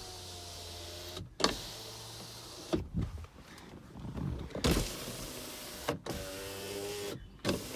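Power window motors of a 2007 Toyota Camry running as the windows are lowered one after another. Each run is a steady electric whir, ended or broken by a sharp clunk, four in all, the loudest near the middle.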